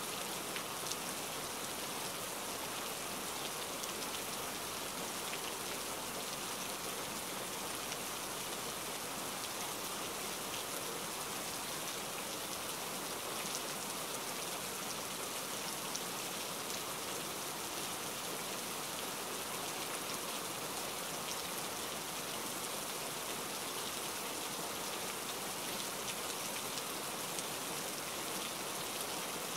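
Steady rain falling, an even hiss with fine scattered ticks of individual drops and a few slightly louder drops now and then.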